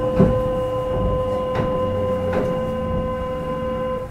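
A station departure buzzer sounding as one steady, even buzz, with a few light clicks, then cutting off suddenly near the end.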